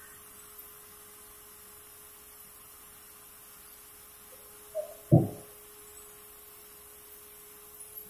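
Steady single-pitched hum, with a small knock and then a heavy wooden thud about five seconds in as a thick sawn pulai board is handled on the sawmill carriage.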